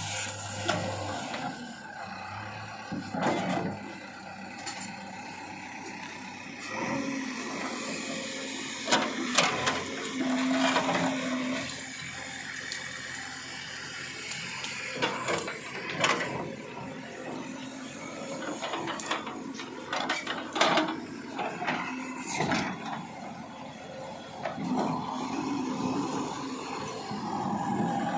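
Backhoe loader at work: its diesel engine running steadily, with many sharp knocks and clanks of the machine working.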